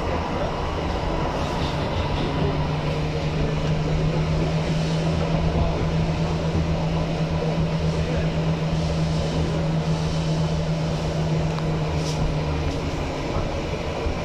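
Inside a 1977 Stadtbahn light-rail car running on its rails, a steady rumble of wheels and running gear. A low, even hum sets in about a second and a half in and stops shortly before the end.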